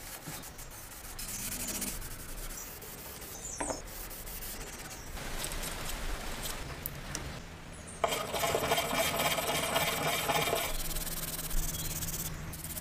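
Several short stretches of hand rubbing and scrubbing that change abruptly from one to the next: a pad rubbed over the finish of a wooden box, and a brush scrubbing a small metal part. The loudest, densest scrubbing comes about two-thirds of the way in.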